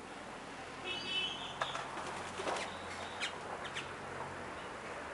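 Wings flapping as birds leave and land on a bunch of bananas on the plant. A short buzzy bird call comes about a second in, and a few sharp clicks follow.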